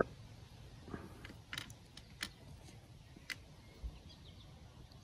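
Light handling noise: a few faint, sharp clicks spread over a few seconds, as the small chert end scraper is moved about in the hand, over a quiet outdoor background.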